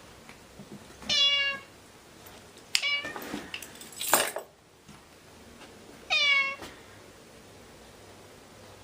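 A cat meowing: two loud half-second meows about five seconds apart, each dropping in pitch at the end. Between them come a shorter call and a brief noisy burst.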